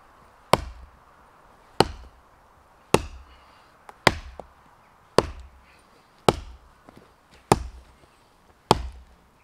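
Hultafors hunting axe, a small 1.2 kg axe, chopping into a small tree trunk: eight sharp strikes at an even pace of about one every 1.2 seconds. He is scoring the line of his felling cut.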